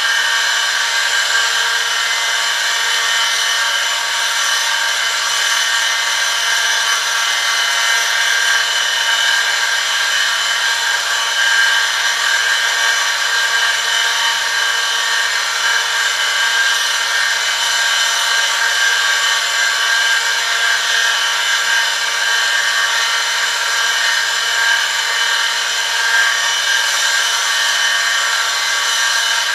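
Oil film-strength friction tester running: an electric motor turns a steel shaft against a metal test sample pressed on under a 1 kg lever load, lubricated with hot (100 °C) 10W-40 motorcycle oil. It gives a steady, high-pitched metal-on-metal rubbing whine of several tones over a low motor hum.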